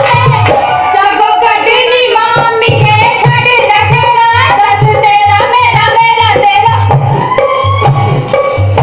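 A loud song played through stage loudspeakers: a sung melody over a steady, pulsing drum beat, accompanying a folk dance.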